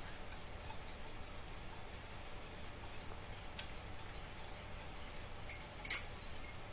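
Wire whisk stirring liquid chocolate cake batter in a mixing bowl, with faint light ticks of the wires against the bowl and two sharper clinks close together near the end.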